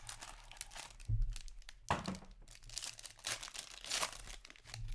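Plastic wrapping crinkling and tearing in irregular bursts as a sealed box of hockey trading cards is opened.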